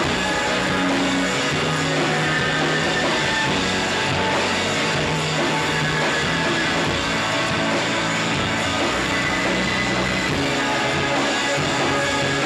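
Shoegaze rock band playing live: electric guitars and bass guitar in a dense, unbroken wall of sound at a steady loud level.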